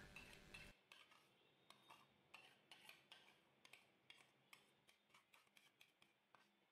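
Faint, irregular clinks and scrapes of a metal serving spoon against the inside and rim of an aluminium pressure cooker as cooked khichuri is scooped out.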